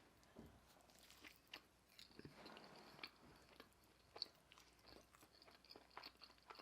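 Faint close-up chewing of food: soft, wet mouth clicks and smacks scattered through, with a brief bite or rustle about two seconds in.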